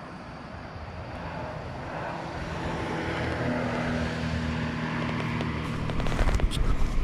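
A distant engine drone that grows steadily louder, with a few low thumps in the last second.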